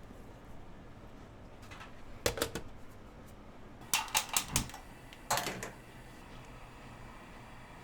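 Kitchen utensils and containers clicking and tapping during food preparation, in three short groups: two clicks, then four quick clicks, then one more, over a steady low hum.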